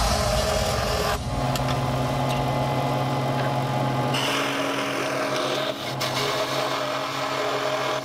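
Harbor Freight 16-inch scroll saw running, its reciprocating blade cutting a thin piece of wood with a steady motor hum and rasping saw noise.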